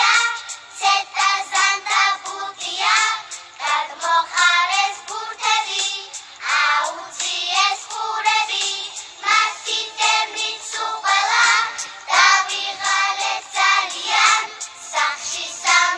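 Young girls singing a Georgian children's song over a musical backing track.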